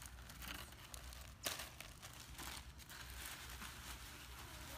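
Paper and plastic bags crinkling and rustling as they are handled and pulled apart, in irregular rustles with one sharper crackle about a second and a half in.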